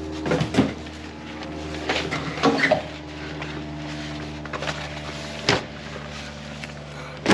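Cardboard packing being pulled out and handled, with a few knocks and rustles: a sharp one about five and a half seconds in. A steady low hum runs underneath.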